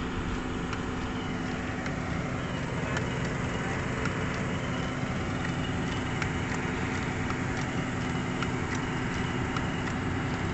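Diesel excavator engine idling steadily, a constant low hum, with scattered light clicks and taps.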